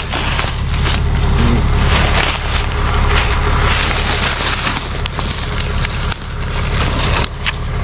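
Steady low rumble of an idling truck engine under dense crackling and rustling, a close, continuous crunching noise like brush or twigs being crushed.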